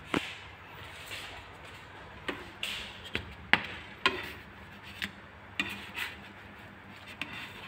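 A spatula clicking and scraping against a nonstick frying pan as pancakes are turned, about ten sharp irregular knocks.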